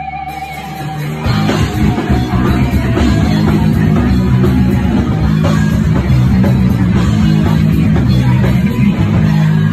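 Live heavy punk band playing loud. A held, wavering tone fades out about a second in as the full band crashes in, with distorted electric guitars and fast, pounding drums.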